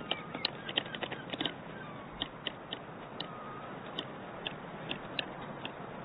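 Albatrosses bill-fencing in courtship, their bills knocking together in a string of sharp, irregular clacks, a few a second, over a steady background hiss.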